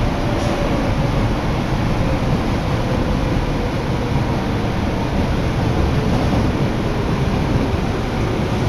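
Osaka Metro Midosuji Line subway train running at speed, heard from inside the carriage: a steady, unbroken rumble of wheels and running noise.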